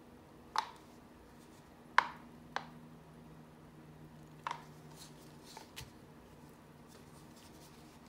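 A few sharp clicks and taps of plastic paint cups being handled, the loudest about two seconds in, over a faint steady hum.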